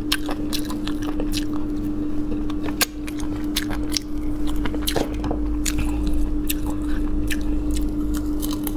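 Close-up gnawing and chewing of meat and cartilage off pork bone pieces: irregular sharp clicks and crunches of the mouth, several a second. A steady low hum runs underneath.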